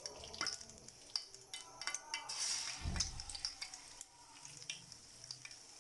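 Gram-flour pakora batter frying in hot oil: a steady sizzle with many scattered pops and crackles. A louder rush and a low thump come about three seconds in.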